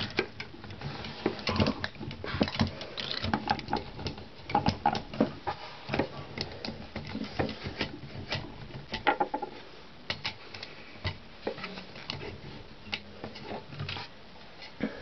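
Irregular metallic clicks, rattles and knocks from a Blickensderfer typewriter's carriage being worked loose by hand and slid off its rails.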